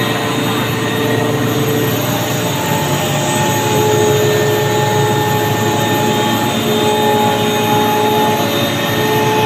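Elite Air EAV 185AD twin-screw air compressor with a permanent-magnet motor running: a loud, steady machine noise with several steady tones. A few of the tones shift slightly in pitch about two seconds in.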